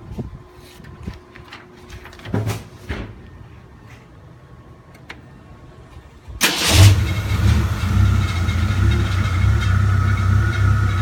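A few light clicks and knocks, then about six seconds in a tractor engine starts with a brief burst of cranking, catches almost at once and keeps running steadily.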